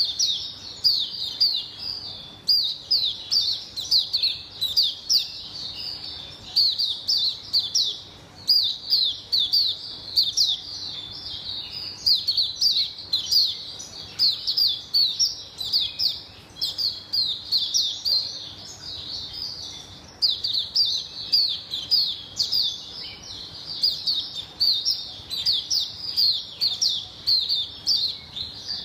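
Caged white-eye (mata puteh) singing a long, rapid twittering song of high chirps, in phrases broken by a few brief pauses.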